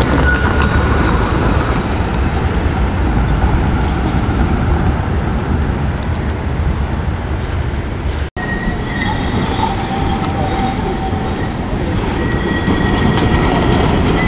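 Street tram running on steel rails set in the pavement, its wheels squealing in thin, steady high tones over a dense rumble. The sound breaks off for an instant a little past the middle.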